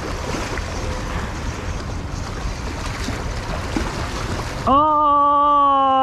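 Steady wind and water noise at a rocky shoreline, then near the end a man's loud, long drawn-out 'Ohhh!' as he loses a hooked fish.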